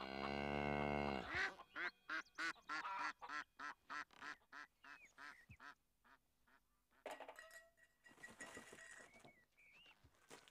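A cow gives one long, low moo. Then ducks quack in a quick run of about four quacks a second for several seconds, and fainter farmyard calls follow.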